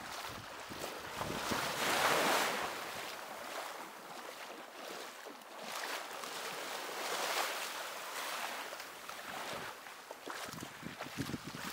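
Sea waves washing onto a beach, the surf rising and falling in slow swells, loudest about two seconds in.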